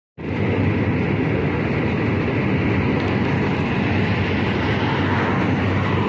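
Steady rumble of a train running across a steel truss river bridge, heard from on board.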